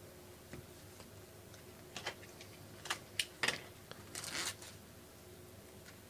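Baseball trading cards being handled: a few light clicks and ticks, then a short scraping swish about four seconds in, as cards are slid and flipped through.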